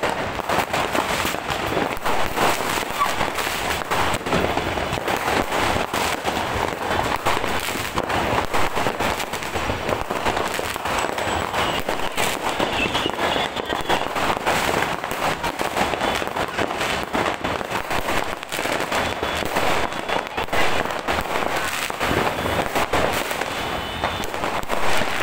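Fireworks going off in a dense, unbroken run of many overlapping bangs and crackles.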